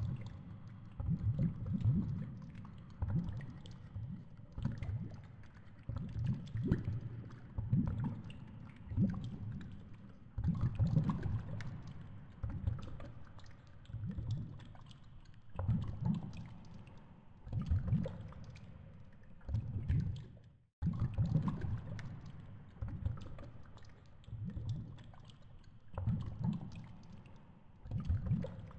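Underwater flow noise on a GoPro's waterproof housing as a fishing rig moves through the water: low rushing surges that swell and fade every second or two, with light clicking and crackling on top. The sound breaks off briefly about two-thirds of the way through.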